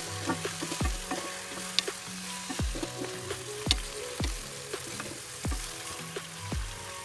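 Food frying and sizzling in a pan while it is stirred, under background music with a steady kick-drum beat about once a second.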